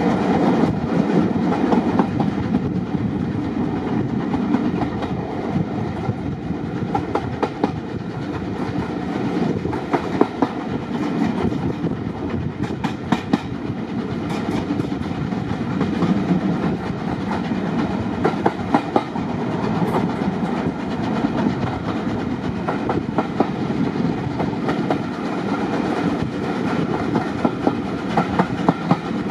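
Railway carriage running along the track: a steady rumble with the clickety-clack of the wheels over rail joints coming in clusters every few seconds, heard at the carriage window.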